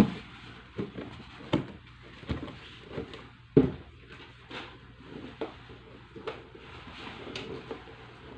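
Footsteps climbing a wooden staircase: a thud at each step, about one every three-quarters of a second.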